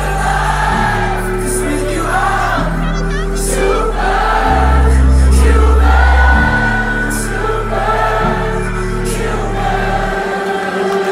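Electronic dance music played loud over a sound system, with held deep bass chords changing every couple of seconds under sung vocals that a crowd sings along to. The bass drops out about ten seconds in.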